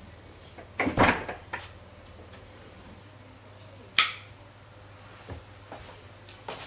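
Interior door being opened: a rattle of the handle and latch about a second in, then a single sharp click about four seconds in, followed by a few light footsteps. A low steady hum lies underneath.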